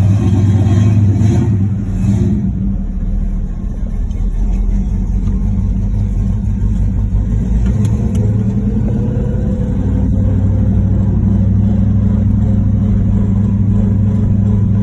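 1968 Pontiac GTO's V8 engine running as the car drives off. The engine note eases briefly, then rises steadily in pitch as it accelerates and settles into a steady cruise.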